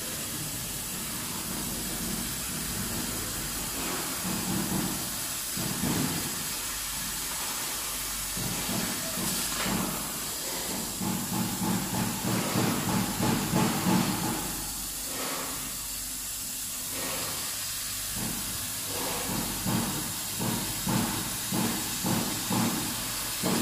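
Large gantry laser cutting machine cutting 10 mm MDF: a steady hiss, with stretches of rapid rhythmic pulsing around the middle and again near the end.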